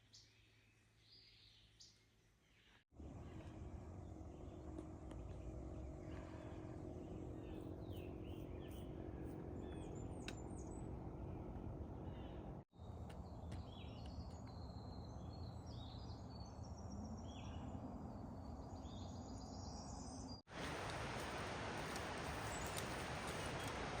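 Small birds chirping over steady outdoor background noise, in several short clips. A louder, even rushing noise fills the last few seconds.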